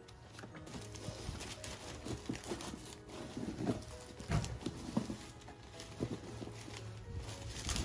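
Old paper envelopes and documents rustling and crackling as they are handled and sorted in a cardboard box, with irregular taps and knocks.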